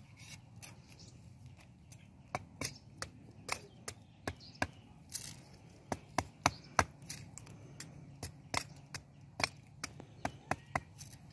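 Knife blade chopping food against a concrete ledge: a run of sharp, irregular chops, about two a second.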